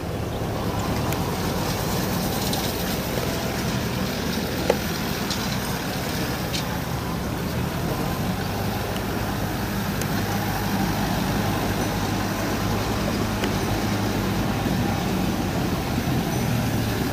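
Diesel farm tractor engine running steadily under load while driving a round straw baler, with one sharp click about four and a half seconds in.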